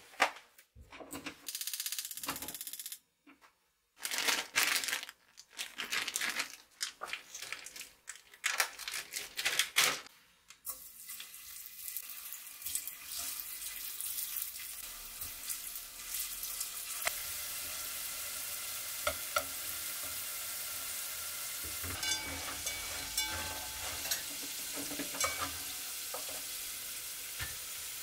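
A run of short broken noises, then potato sticks coated in flour and potato starch deep-frying in oil in a small pot: a steady sizzle from about eleven seconds in, with light clicks of chopsticks against the pot.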